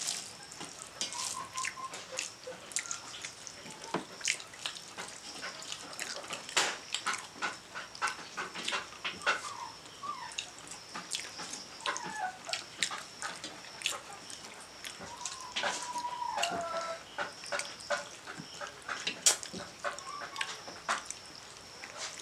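Eating sounds: rice and chicken curry eaten by hand from metal plates, with many quick wet mouth clicks and smacks and fingers working the food on the plates. Short wavering animal calls sound from the background now and then.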